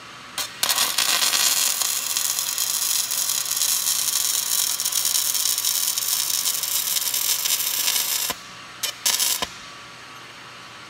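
Arc welding on steel, the arc crackling and sizzling steadily for about eight seconds after a brief strike at the start. Near the end come two short bursts of arc, then it stops.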